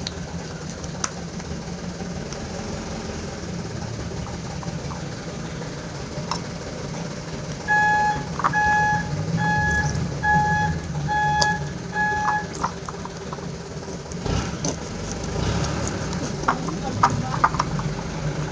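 A vehicle's reversing alarm beeping about seven times, evenly spaced at a bit over one a second, over a steady low engine rumble; a dull thump follows a couple of seconds after the beeping stops.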